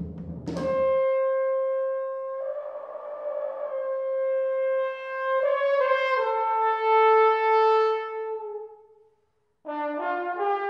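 Jazz drum kit stops about a second in. A trombone and saxophone then hold long, overlapping notes that stack into a chord and fade out. After a brief silence, a new set of horn notes starts near the end.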